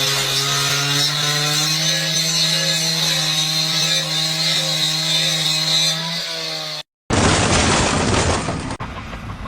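A small engine or power tool running at a steady pitch for about seven seconds, then a sudden cut to a harsh rushing noise.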